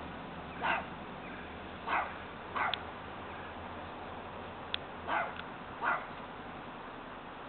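A dog barking: five short barks spaced irregularly over several seconds, over a steady background hiss.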